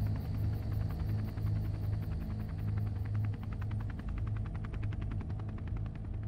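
Helicopter rotor chop: a rapid, even beating over a steady low drone.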